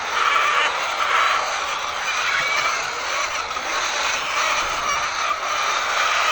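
A large flock of laying hens clucking and chattering together, a dense, steady din of many overlapping calls.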